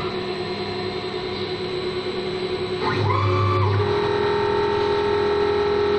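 CNC wood lathe cutting a spinning wooden blank: a steady hiss of cutting with a ringing whine of several held tones, which glide to new pitches about three seconds in.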